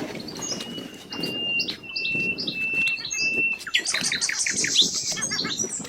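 Small birds chirping in quick, short calls, with a thin steady high note running through the first half and a dense flurry of chirps in the second half.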